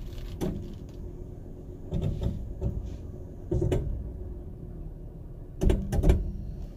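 Toyota 4Runner's CRAWL control working the ABS brake actuator while the truck creeps: short clunks and brief buzzes at irregular intervals over the low steady running of the engine, with the loudest pair near the end. This clanking is normal, the anti-lock brakes coming in and out to hold a very slow speed.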